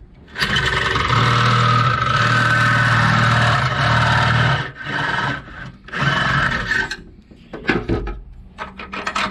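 Cordless drill with a long drill bit boring out a rusted steel hinge tube, to take a 5/16 bolt as a new hinge pin. The drill runs for about four seconds, then again briefly about six seconds in, followed by a few metallic clicks and knocks near the end.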